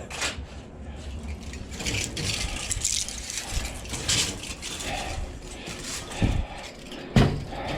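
Metal parts of a scrapped AC condenser being handled: irregular rattling, scraping and knocking, with a sharp knock about seven seconds in.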